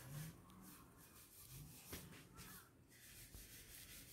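Near silence: faint room tone with a few soft, faint sounds and a small click about two seconds in.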